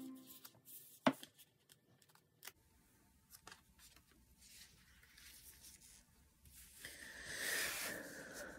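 Paper cutouts and a glossy magazine page being handled and slid over one another: a sharp tap about a second in, a few faint ticks, then paper rustling and sliding for about a second and a half near the end.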